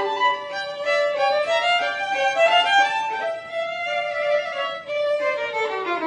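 Violin duet: two violins playing a slow, legato melody of sustained bowed notes.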